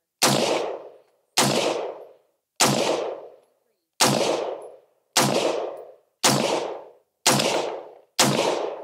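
Eight shots from an AR-15 rifle with a 16-inch barrel firing 5.56 ammunition, about one a second, each dying away over most of a second.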